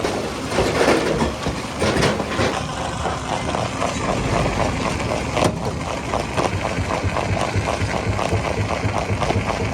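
Rock crusher running with a rapid, even clatter. There are a few louder knocks in the first two seconds and one more about halfway through.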